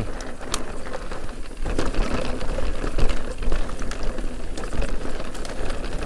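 Canyon Spectral:ON electric mountain bike with a Shimano EP801 motor rattling and clattering as it descends a rough, rocky dirt trail: a dense run of clicks and knocks over the rumble of tyres on the ground, louder from about two seconds in.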